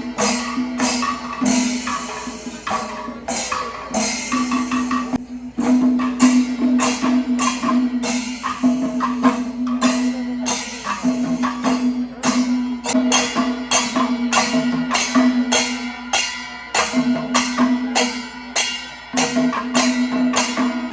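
Percussion-led music: a steady held tone under regular sharp drum and cymbal strikes.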